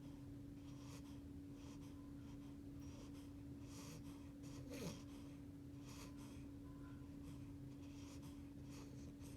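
Eight-week-old beagle puppy snoring softly in its sleep: faint wheezy breaths about once a second, with one slightly louder breath about halfway through.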